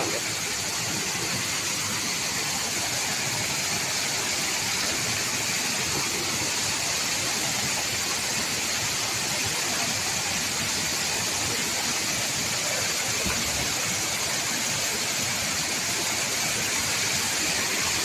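Waterfall pouring into a rock plunge pool: a steady rush of falling water, brightest in the hiss.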